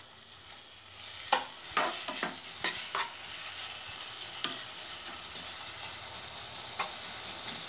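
Elephant apple pieces sizzling in oil in a non-stick pan, the sizzle swelling over the first few seconds after the flame is turned up and then holding steady. A plastic spatula stirs them, scraping and knocking on the pan several times, most often in the first three seconds.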